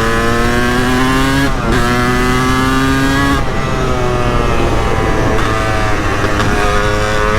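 Honda CR250 two-stroke dirt bike engine running under throttle, its pitch climbing steadily. There is a brief drop about one and a half seconds in. From about three and a half seconds the engine runs lower and rougher off the throttle, then picks up again near the end.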